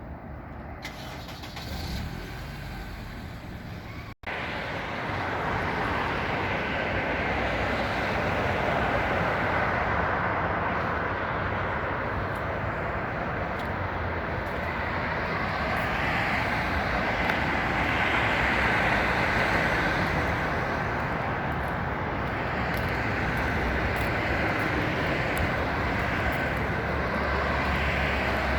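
Steady road traffic noise, passing cars and heavier vehicles blending into a continuous hum. It cuts out for an instant about four seconds in and comes back louder.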